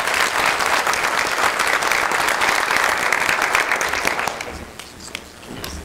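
Applause: many people clapping together in a dense patter that dies away about four seconds in, leaving a few scattered claps.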